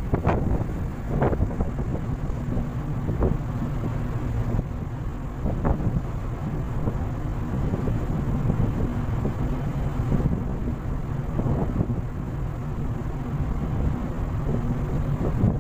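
Steady low rumble of a ship under way at sea, its engine hum under rushing wind, with wind gusting on the microphone a few times in the first six seconds.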